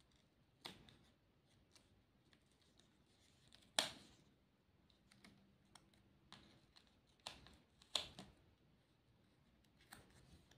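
Scattered light clicks and crinkles of paper stickers being peeled off their backing and pressed onto a paper plate, the sharpest click about four seconds in and another near eight seconds.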